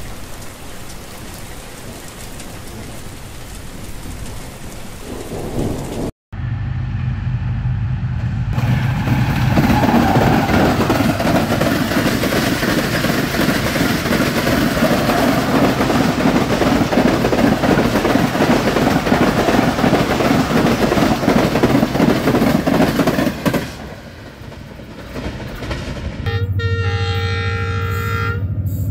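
A passenger train's coaches pass at speed, wheels running on the rails in a dense, steady rush that fades about three-quarters of the way through. Near the end a diesel locomotive's horn blasts, a chord of several steady tones. The opening seconds hold a steady rushing noise that cuts off abruptly.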